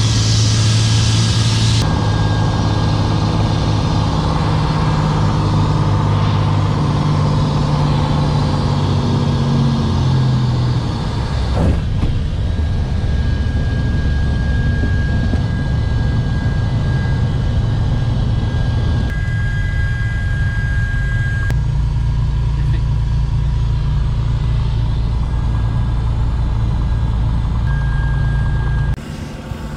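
Single-engine piston aircraft engine and propeller, heard loud from inside the small cabin as the plane rolls along the runway; the engine note shifts several times as power changes. A thin high steady tone comes and goes over it.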